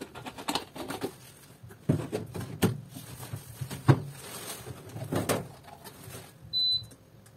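Knocks and clatter from handling a top-loading washing machine and plastic bottles, the loudest thump about four seconds in. Near the end, the machine's control panel gives a short high beep as the wash cycle is set.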